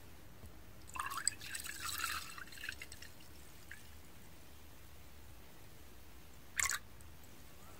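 Makgeolli pouring from above into an earthenware cup: a splashing pour starts about a second in and lasts about two seconds, followed by a brief splash near the end.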